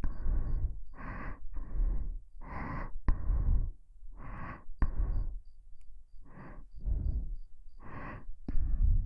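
Close-up breathing into a KU100 binaural dummy-head microphone: about a dozen slow breaths in and out, each a soft noisy rush, with the breath blowing a low rumble onto the mic, and a couple of short clicks.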